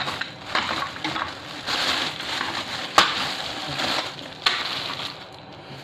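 Clear plastic bag crinkling and rustling as it is handled, with the shards of a broken piggy bank inside; a sharp click about three seconds in and another about a second and a half later.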